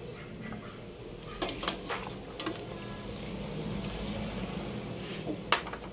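A few light clinks and knocks of utensils at a cooking pot, over a steady low background hum.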